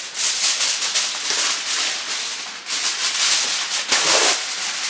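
Aluminum foil crinkling and crackling as it is spread and pressed over a baking dish, rising and falling in loudness with a brief lull in the middle.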